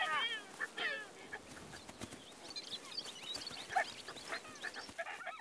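Young Ethiopian wolves squealing and yelping as they play-fight. There is a cluster of high, wavering squeals at the start and another about a second in, then fainter scattered squeaks.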